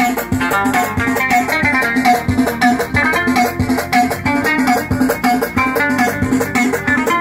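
Moroccan lotar (loutar), a long-necked lute with a skin-covered body, plucked in a fast, repeating melodic figure of short notes over a steady pulse, in chaabi style.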